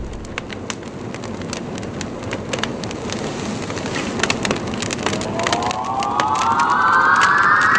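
Fire crackling, a steady hiss with many sharp crackles. About five seconds in, a pitched tone with several overtones comes in and rises steadily.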